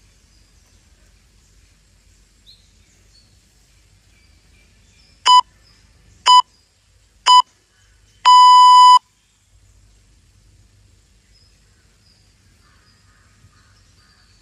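Workout interval timer beeping: three short beeps a second apart, then one longer beep of under a second, counting down to the end of the one-minute exercise interval. Faint birds and insects can be heard behind it.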